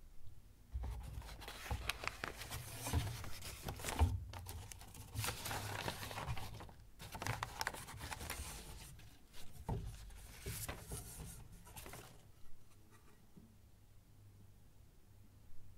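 Paper sleeves and a cardboard box being handled: rustling and scraping of paper with a few light knocks, dying down about three-quarters of the way through.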